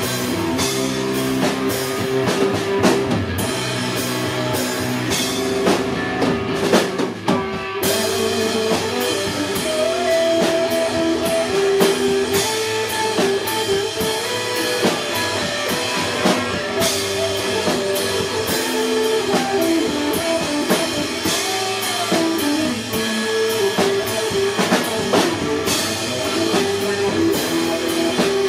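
Live rock band playing an instrumental passage on electric guitars and a drum kit, with a short break about seven seconds in before the full band comes back.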